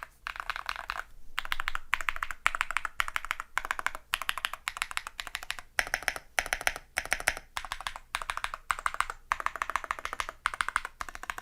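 Typing on a qwertkeys QK75 gasket-mounted custom mechanical keyboard with a POM plate, Krytox 205g0-lubed Geon Tecse Clear switches and Geon Desko keycaps. The keystrokes come in quick runs of several keys at a time with short pauses between them.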